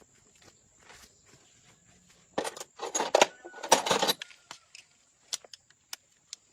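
Small metal parts or tools clinking and rattling together in a burst of about two seconds, followed by a few single clicks.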